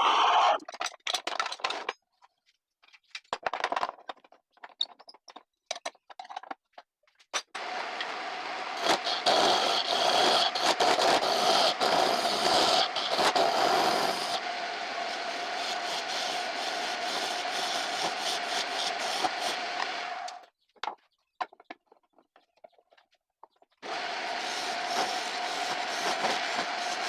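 Homemade wood lathe running, a steady hum, while a turning tool scrapes and cuts the spinning wood. At first there are only scattered scrapes and clicks. About seven seconds in, a long steady cut begins that stops for a few seconds past the twenty-second mark and then resumes.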